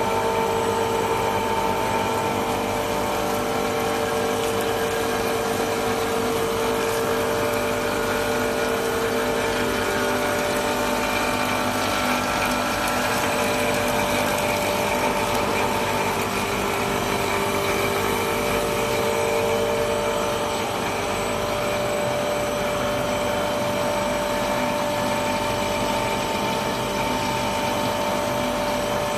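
Three-layer cast stretch film production line running: a steady machine hum with several constant whining tones.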